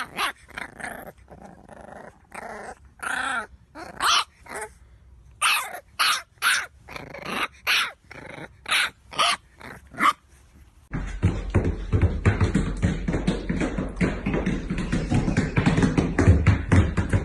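English bulldog puppy barking and yipping in a string of short, separate calls. About eleven seconds in, the barking gives way to a louder, continuous noise thick with rapid clicks.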